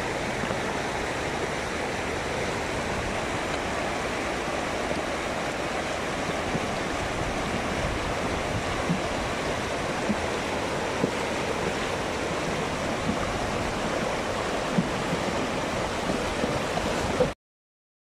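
Shallow, fast river rushing over stones: a steady wash of running water that cuts off abruptly near the end.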